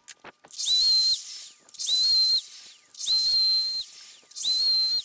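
Sliding miter saw started and stopped four times in quick succession for short cuts, about one a second. Each is a brief high whine that rises as the blade spins up and drops away as it brakes.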